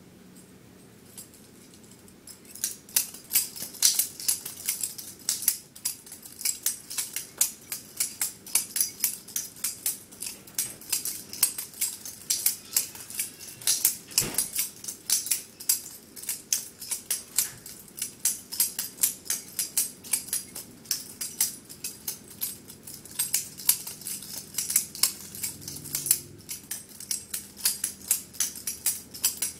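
Butterfly knife (balisong) being flipped: a fast, uneven run of sharp metal clicks and clacks as the handles swing around and hit the blade and each other, starting about two seconds in.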